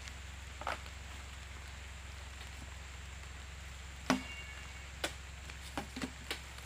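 Heavy oil palm fruit bunches landing with knocks and thumps as they are loaded onto a lorry's stacked load: one knock near the start, then a cluster of five or six about four seconds in, the first and loudest with a brief metallic ring. A low steady hum runs underneath.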